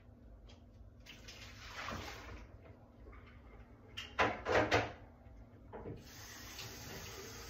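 Household sounds from out of sight: a few sharp knocks or clatters about four seconds in, then a steady rush of running water from about six seconds on.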